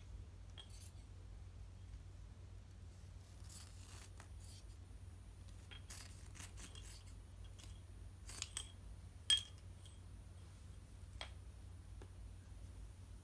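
Scissors cutting an old bedsheet into a rag: scattered snips with a few short clicks of the blades, the two sharpest past the middle.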